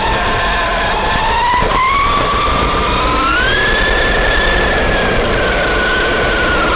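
ARRMA Big Rock RC monster truck's electric motor whining with throttle: the pitch climbs about two seconds in, drops back, climbs again and holds high, then eases down near the end. A steady rushing noise runs underneath.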